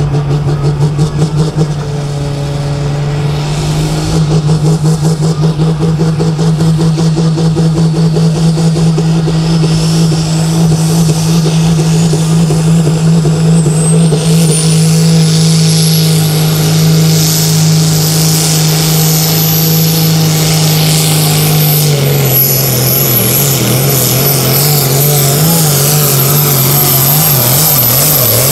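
Turbocharged diesel engine of a Super Sport pulling tractor held at high revs on the start line to build boost, with a turbo whine rising in pitch and then holding high. About two-thirds of the way through the engine note drops and wavers as the tractor takes up the sled and starts its pull.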